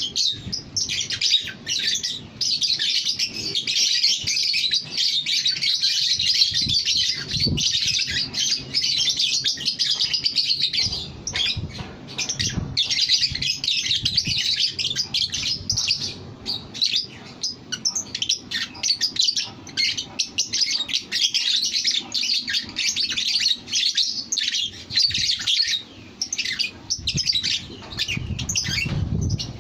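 Lovebird chattering in a continuous stream of rapid, high-pitched chirps, broken only by a couple of brief pauses.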